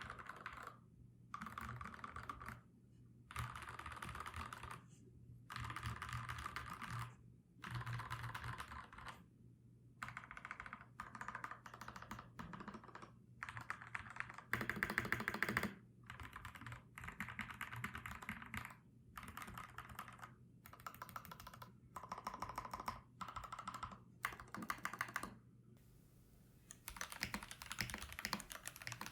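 Mechanical keyboard typing on lubed FFFF 62 g linear switches (205g0 lube), with the deeper thock of linears, in bursts of quick keystrokes separated by short pauses. After a longer pause near the end, typing resumes on lubed, filmed Cherry Red linear switches.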